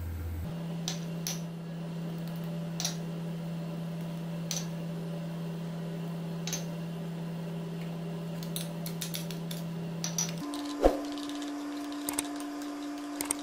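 Light scattered clicks and taps of small plastic bowls and a metal spoon against a ceramic bowl as spices are tipped into yogurt, then the spoon clinking and scraping as the yogurt is stirred near the end. Under it runs a steady low hum that shifts up in pitch about ten seconds in.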